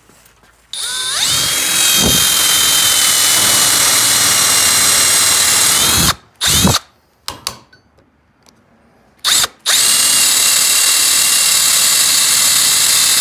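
Power drill boring small clean-out holes through a wooden track plate with a paddle bit. It runs steadily with a high motor whine, stops at about six seconds, gives a short burst, pauses for a few seconds, then runs again from about ten seconds.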